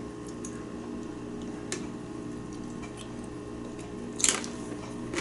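Someone eating soup with a spoon: a few faint spoon clicks against the bowl, then a short slurp about four seconds in, over a steady low hum.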